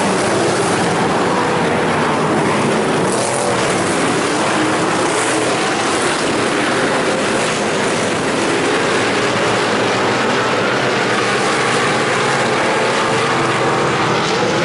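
A pack of IMCA stock cars racing, many V8 engines running loud together, their overlapping notes rising and falling as the cars pass through the turns.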